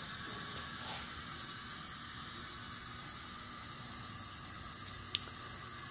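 Compressed air hissing steadily as it leaks past the piston ring end gaps of a Pontiac 400 V8 cylinder held under shop-air pressure. It is a small, normal amount of leakage, the sign of a cylinder that is already sealing well before the rings are broken in. A couple of faint ticks come through it.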